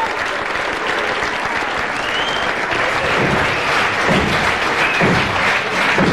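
Studio audience applauding steadily, a dense clapping that carries on throughout.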